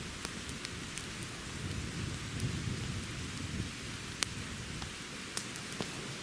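Wood campfire burning: sharp crackles and pops from the burning wood, scattered irregularly over a steady low rumble, with one louder pop about four seconds in.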